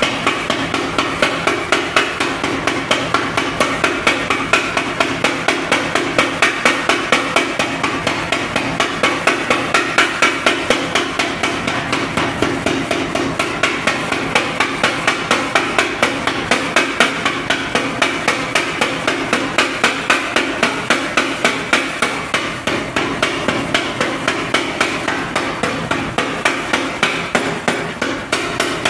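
A 3 kW electric power hammer pounding a red-hot steel bar on its anvil in a steady, rapid run of evenly spaced blows, forging the end out into a thin crowbar blade. A faint steady hum runs under the blows.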